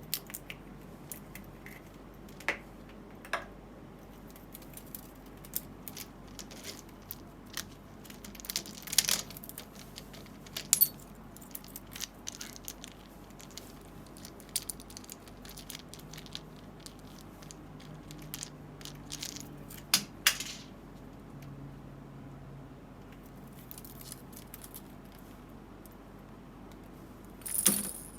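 Cups and a ball being tossed and knocked about by an Indian ringneck parakeet. It makes scattered light clicks, clatters and rattles of small hard objects, with a few sharper clacks, some in the middle and one near the end.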